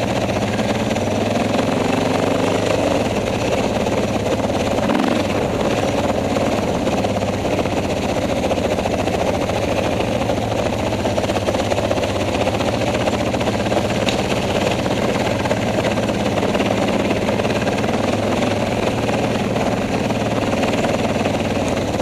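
Dirt bike engine running steadily while riding a rough trail, heard from the bike carrying the camera.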